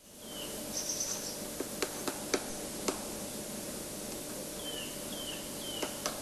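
A woodpecker tapping at a tree branch: a handful of sharp, irregular knocks, clustered in the first half with two more near the end. Short falling bird calls and one brief high chirp come over a steady faint outdoor background.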